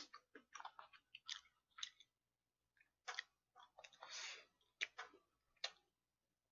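Faint, close-miked chewing and mouth sounds of a person eating, in short irregular bursts.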